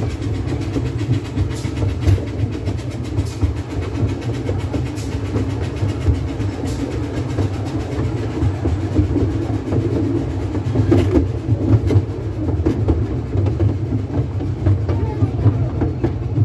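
12¼-inch-gauge miniature steam railway train running along the track, heard from a moving carriage: a steady low rumble of wheels on rail, with a sharp click about every second and a half as the wheels cross rail joints.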